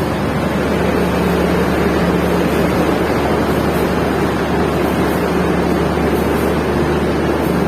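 Passenger train running: a steady rumble and rushing rail noise with a constant low hum underneath.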